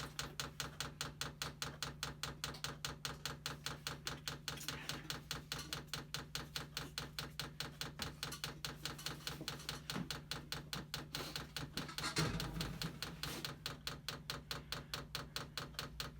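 The 12 V fuel dosing pump of an all-in-one 8 kW diesel heater ticking rapidly and evenly, about five clicks a second, while priming the fuel line. A steady low hum runs underneath, and there is a brief louder rustle about twelve seconds in.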